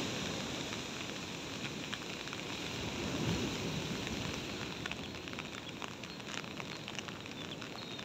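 Steady rain with many small drop ticks, over the low wash of surf.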